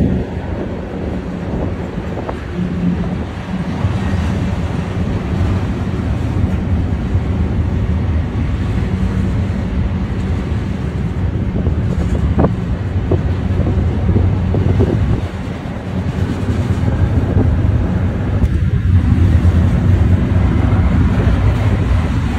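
Double-stack container cars of a freight train rolling past, a steady low rumble of steel wheels on rail.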